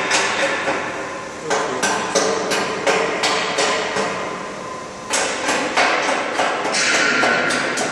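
Laser marking machine engraving a wood-plastic composite board: a steady hiss and faint steady tone, cut through by irregular sharp knocks, several a second, that are the loudest sounds.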